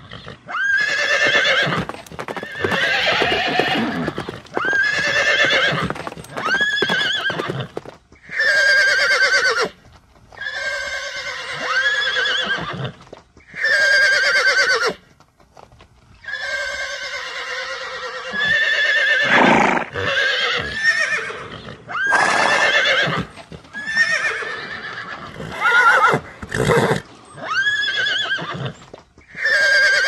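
Horse whinnies, one after another with short gaps. Each is a loud, trembling call lasting one to two seconds.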